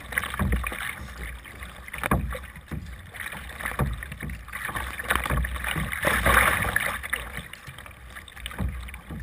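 Kayak paddle strokes splashing in the water, one after another, and choppy water slapping the hull, with a steady low wind rumble on the microphone while paddling into a headwind.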